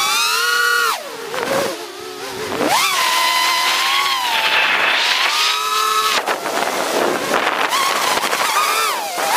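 Brushless motors and propellers of an FPV Cycle TP3 toothpick quadcopter (RCN Power 1204 5000kv motors) whining, heard from a camera mounted on the quad; the pitch falls sharply as the throttle is chopped about a second in and climbs back near three seconds, then rises and falls with smaller throttle changes. The quad is laden with a camera and a heavy battery.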